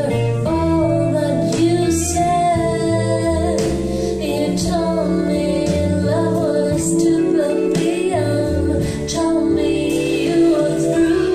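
Recorded music with a woman singing, played back through a pair of DIY two-way floor-standing speakers with Seas drivers (Zaph SR71 design) driven by an LM3886 Gainclone amplifier, heard in the room. The sung melody runs continuously over a steady, stepping bass line.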